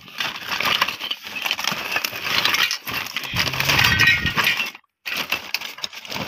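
Scrap metal and plastic junk clinking and rattling inside a woven plastic sack as it is shifted and handled, with the sack rustling; the clatter stops briefly about five seconds in.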